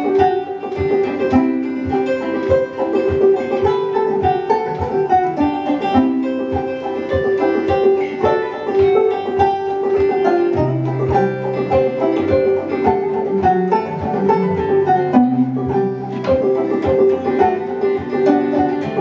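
Old-time banjo tune: quick plucked notes over a repeated high note, with lower notes joining about ten and a half seconds in.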